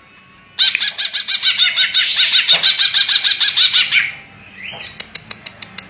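Caged cucak ijo (a leafbird) singing a fast run of repeated chirping notes for about three seconds, then a series of sharp ticks near the end.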